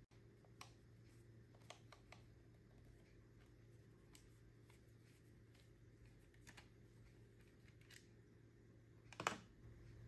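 Faint small clicks of a screwdriver working a screw out of a plastic PIR motion sensor casing, over a low steady hum. A louder knock comes about nine seconds in, as the sensor is set down on the wooden table.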